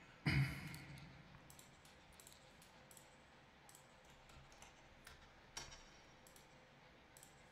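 Close handling noise: a sharp knock about a quarter second in that rings briefly, a softer knock a little past five seconds, and faint scattered clicks in between.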